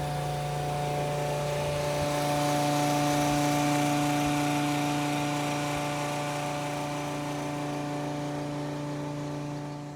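A machine running with a steady, even-pitched hum over a hiss, swelling a little a few seconds in and easing off before it cuts off near the end.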